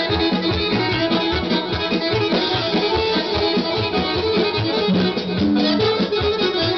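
Live Serbian kolo folk dance music led by two accordions playing a fast, busy melody over a steady, regular bass beat.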